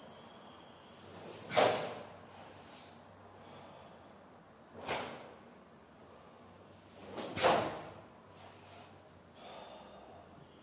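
Three sharp, forceful exhalations by a karateka performing the kata Suparinpei, each breathed out hard with a technique, about one and a half, five and seven and a half seconds in.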